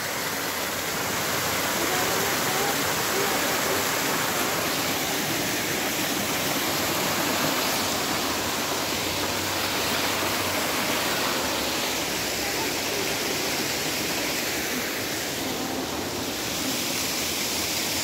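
Small waterfall tumbling down a series of rock steps, giving a steady rush of water.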